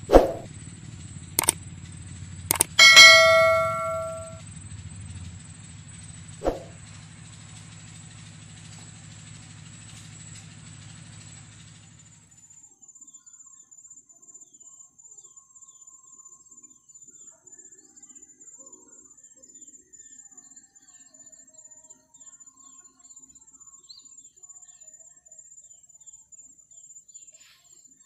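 A single bell-like ding about three seconds in, ringing for just over a second, with a few sharp clicks before and after it. A low hum stops about twelve seconds in, leaving a quiet stretch with only a faint, high, steady pulsing.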